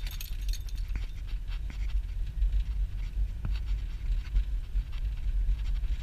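A car driving, heard from inside the cabin: a steady low road rumble with scattered light clicks and rattles.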